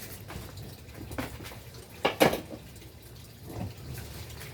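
Banging on a plant pot, trying to knock the plant and its soil loose: a light knock about a second in, two loud knocks in quick succession about two seconds in, and another knock near the end.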